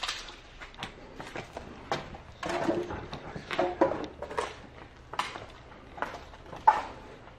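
Footsteps crunching and knocking over a debris-strewn wooden floor, with scattered irregular clatters; a louder stretch of clatter comes a few seconds in, and the sharpest knock comes near the end.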